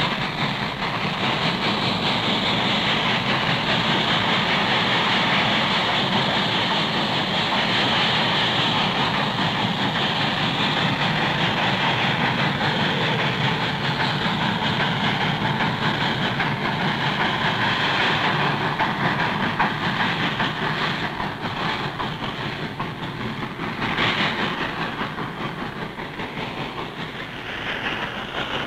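A steam-hauled coal train running past, with the steady noise of its wheels on the rails, fading slightly near the end.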